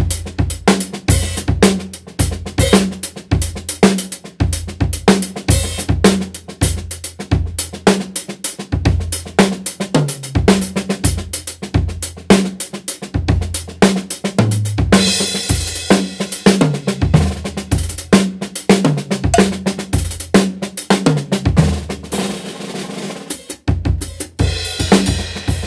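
Acoustic drum kit with Paiste cymbals played solo: fast, dense patterns across bass drum, snare and toms. Cymbal crashes ring over the drums about fifteen seconds in, and again near the end after a brief drop in the playing.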